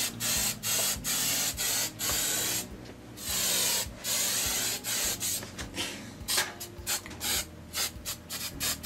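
An aerosol can of hairspray sprays in repeated hissing bursts, several of them about a second long, then quicker short bursts in the second half.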